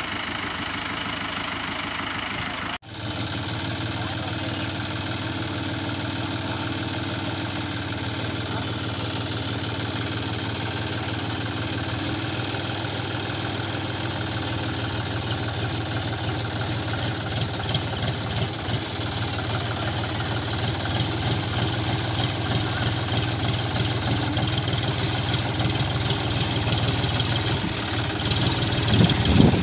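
John Deere tractor's diesel engine running steadily as the tractor works slowly through a muddy, waterlogged field, growing louder near the end. A brief break about three seconds in.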